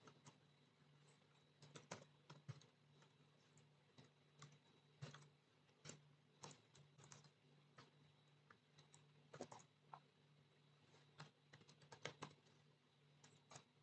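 Faint typing on a computer keyboard: irregular key clicks, often in quick clusters of several strokes, over a low steady hum.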